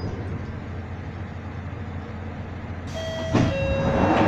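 London Underground Northern Line train running with a steady low rumble. About three seconds in it grows louder, with high steady squealing tones as the train brakes into a station.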